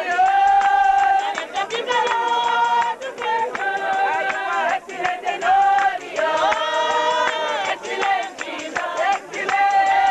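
A group of voices singing together, a slow melody in long held notes that move step by step.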